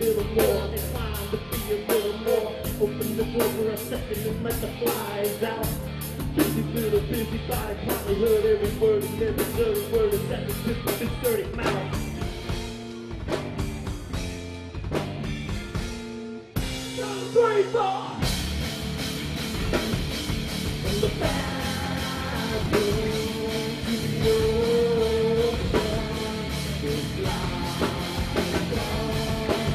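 Live rock band playing: drum kit, electric guitar and bass under a male vocalist singing. About twelve seconds in the cymbals drop out for a sparser passage, there is a short break, and then the full band comes back in.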